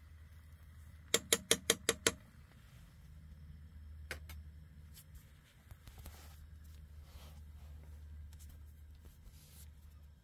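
A metal fork tapped six times in quick succession against the rim of a non-stick frying pan, then a single lighter click a couple of seconds later, over a steady low rumble.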